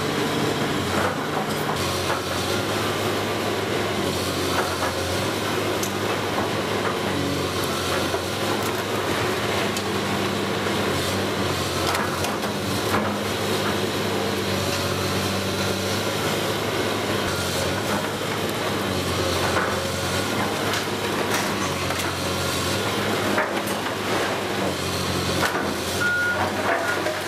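Caterpillar 328C excavator's diesel engine running under hydraulic load as its bucket breaks into a brick tower, with scattered knocks and clatter of falling brick. Near the end a reversing alarm starts beeping.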